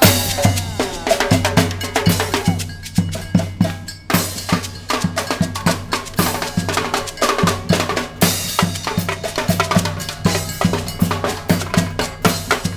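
Street band percussion section playing a fast, steady drum groove on snare and bass drums, with a low brass line underneath; the beat thins out briefly about three seconds in, then comes back full.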